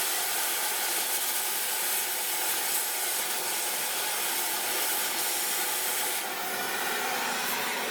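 Oxy-fuel cutting torch with a number 15 tip running, a loud steady hiss. The upper part of the hiss drops off about six seconds in.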